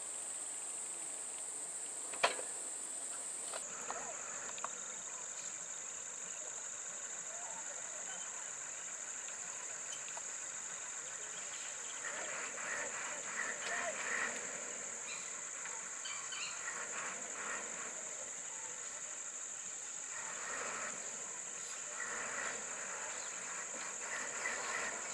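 Steady high-pitched drone of insects, with one sharp click about two seconds in.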